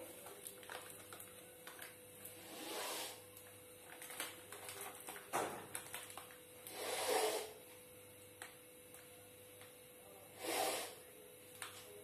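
A woman sniffing red chilli powder from a plastic packet to provoke a sneeze: three short, strong sniffs, a few seconds apart, with faint crinkles of the packet between them. No sneeze comes.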